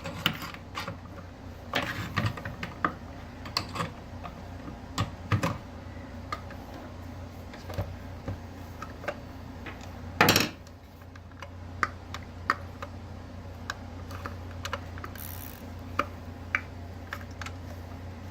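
Small metal parts and tools clicking, tapping and clattering against each other and a work surface while a mixer grinder's motor is taken apart, with one louder clatter about ten seconds in, over a steady low hum.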